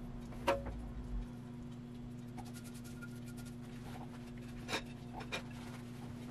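Light clicks and taps of hands handling a plate and paper towel: a sharp tick about half a second in and two more near the end, over a steady low hum.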